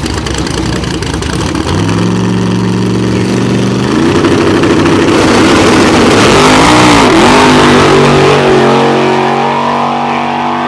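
Drag-racing car's engine accelerating hard, its pitch climbing over the first few seconds. It is loudest about six to seven seconds in, then drops and settles into a lower, steady note.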